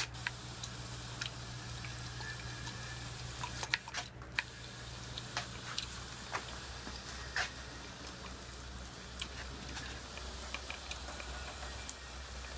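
Small hand-pump sprayer misting water over a sandblasted aluminium sterndrive to rinse off the aluminium prep: a steady hiss with scattered drips and ticks of water falling into plastic trays, over a low steady hum.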